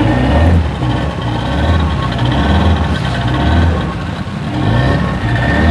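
Outboard motor running steadily, driving a wooden fishing boat along a river, with a strong low hum.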